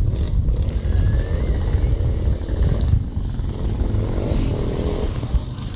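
Motorcycle trials sidecar outfit's engine running hard through a dirt section, its pitch rising and falling as the throttle is worked.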